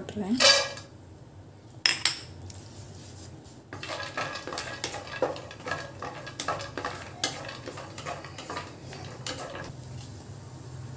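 Cashew pieces tipped from a small bowl into ghee in a nonstick pan, a sharp knock, then a wooden spatula scraping and clicking against the pan as the cashews are stirred, starting about four seconds in and stopping near the end.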